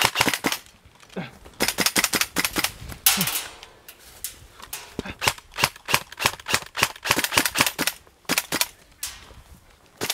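Airsoft rifle firing on full auto in repeated bursts of rapid shots, about ten a second, with short pauses between bursts.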